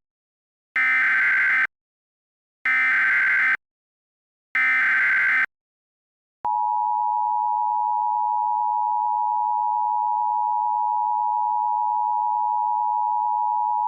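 Emergency Alert System alert opening: three short bursts of warbling SAME header data tones, each just under a second with silent gaps between them. About six and a half seconds in comes the steady, harsh two-tone EAS attention signal, held without a break, which announces that an emergency message is about to be read.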